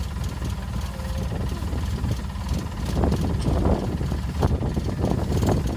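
Combine harvester engine running steadily at a low rumble.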